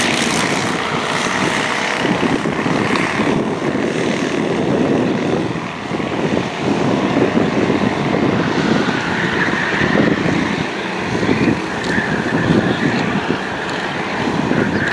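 Racing kart engines buzzing as several karts lap the circuit. The sound swells and fades as they pass, dips briefly around six seconds in, and a higher whine comes in over the second half.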